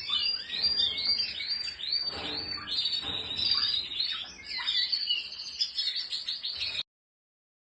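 Canaries singing: rapid runs of repeated downward-sweeping chirps and trills, cutting off abruptly near the end.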